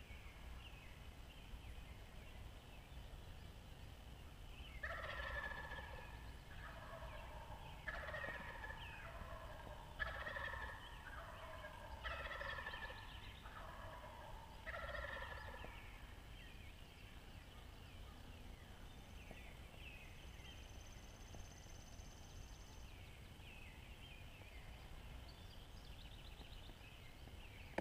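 Wild turkey gobblers gobbling, five gobbles in quick succession, each a rattling call of a second or so.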